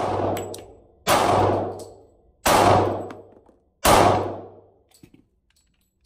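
Smith & Wesson M&P Shield 45 pistol firing .45 ACP: three shots about a second and a half apart, each ringing out with a long echo in the indoor range. A shot fired just before is still dying away at the start, and a few faint clicks follow the last shot.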